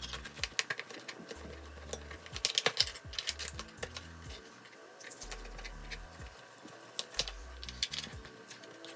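Kitchen knife cutting through a tilapia on a plastic cutting board: a run of sharp clicks and taps as the blade goes through the fish and strikes the board, coming in quick clusters about two and a half seconds in and again near the end.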